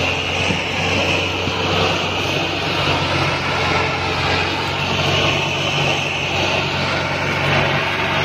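Massey Ferguson 385 tractor's four-cylinder diesel engine running hard under heavy load as it pulls an overloaded sugarcane trolley, a loud steady drone.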